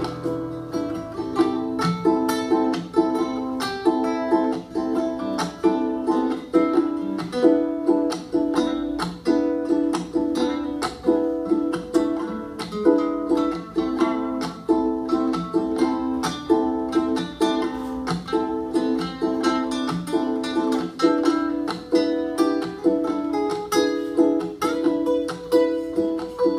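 Acoustic guitars strumming a steady, rhythmic chord pattern in an instrumental break, with no singing.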